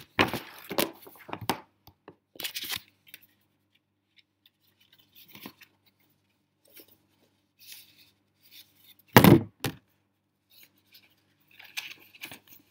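Cardboard and paper packaging being handled and unfolded: scattered bursts of rustling and crinkling, with one loud thump about nine seconds in.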